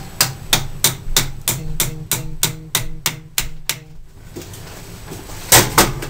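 Small hammer tapping a brass cap onto the end of a bolt held in a lathe chuck: about a dozen quick strikes, roughly three a second, each with a short ring, then a pause and two louder strikes near the end.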